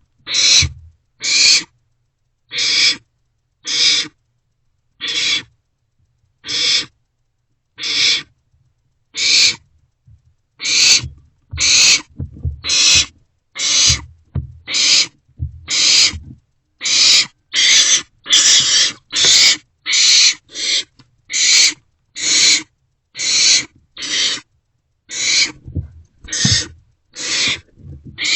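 Barn owlets giving their rasping, hissing food-begging calls over and over. The calls come about once a second at first, then quicker and closer together from about ten seconds in.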